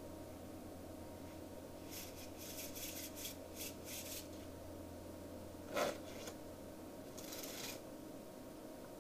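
A deck of playing cards being shuffled and bridged: about two seconds of quick card clicks, one sharp snap of the cards near the middle, and a short rush of cards a second or so later.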